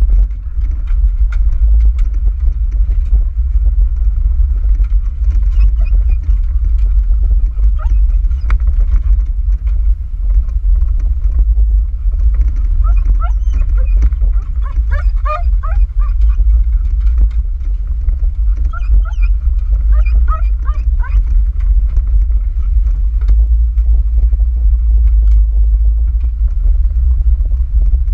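Loud low rumble of wind and road noise inside a 2010 Jeep Wrangler JK Sport driving with its windows open. Two short clusters of high whining calls from the dog come through in the middle.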